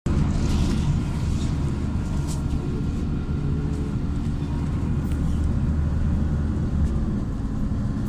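LiAZ 5292.67 city bus heard from inside the cabin, its YaMZ-53624 compressed-natural-gas engine running with a steady low drone. A few light clicks and rattles sit on top, and the drone shifts about seven seconds in.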